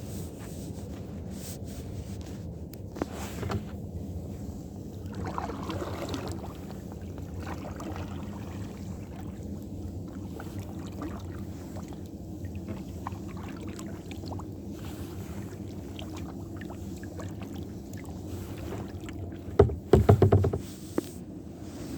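Kayak paddling on open water: steady water noise with paddle strokes and splashes, and a cluster of loud knocks near the end.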